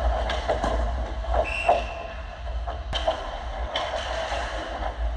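Ice hockey play up close at the net: skates scraping and cutting on the ice and sticks clacking, over a steady low rumble, with a sharp crack about three seconds in.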